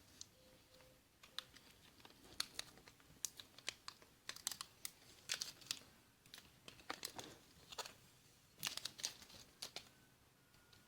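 Irregular small clicks and taps of hands handling a smartphone and its new glass screen panel, with a little crinkling, coming in quick clusters and stopping near the end.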